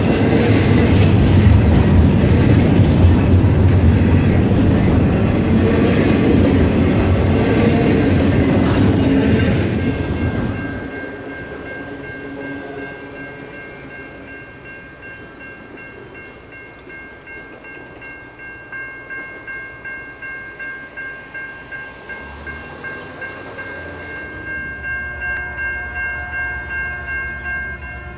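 Double-stack container train cars rolling past with loud wheel clatter, the last car clearing about ten seconds in. After that a distant train horn holds a steady chord-like tone, growing louder with a low engine rumble near the end as another train approaches.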